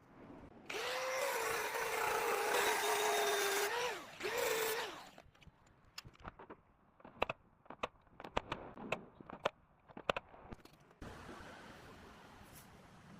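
A handheld power tool spins up with a rising whine and runs steadily for about three seconds. It then gives a second short burst. After that comes a run of sharp clicks and taps, then a faint hiss near the end.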